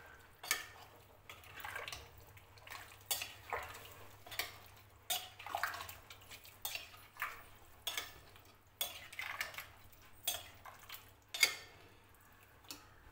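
Metal spoon scraping and knocking against the inside of a pressure cooker while thick chicken curry is stirred, in irregular strokes one or two a second. The curry is being kept moving so it does not stick to the bottom.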